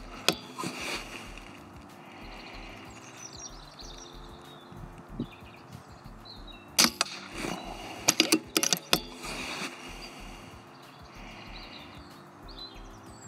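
Air rifle being fired and its action worked during an accuracy test: a few sharp cracks and clicks about halfway through, over a low steady outdoor background.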